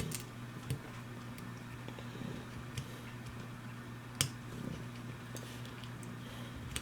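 Small, scattered metallic clicks and taps of a steel pick and a small spring against the frame of a Llama Comanche III revolver as the spring is worked into its seat, the sharpest click about four seconds in. A steady low hum runs underneath.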